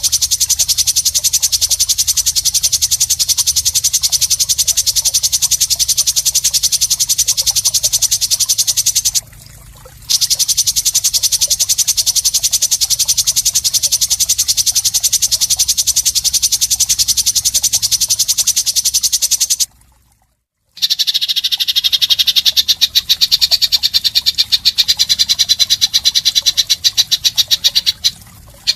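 Rapid high-pitched rattling trill of an animal call, many even pulses a second, from a songbird-training masteran track of rough 'isian kasar' calls. It breaks off briefly twice; after the second break, about two-thirds through, the trill comes back lower-pitched.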